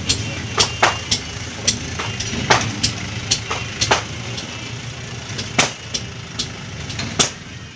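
Short, sharp scraping strokes at an uneven pace as a hand tool roughens the rubber of a truck inner tube around the puncture, readying it for a patch. A steady low hum runs underneath.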